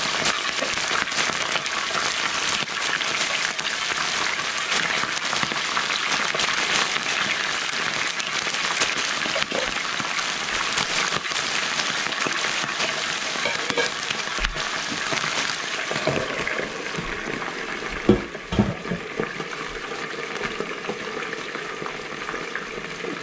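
Chicken wings deep-frying in hot canola oil, a steady dense sizzle and crackle. A couple of sharp knocks come near the end as a glass lid goes onto the pan, and the sizzle is a little quieter after that.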